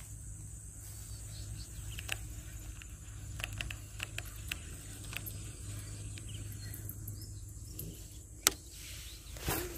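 Outdoor marsh ambience: a steady high insect drone, with scattered light clicks and handling noise from the fishing gear. A sharp click and a brief rustle near the end.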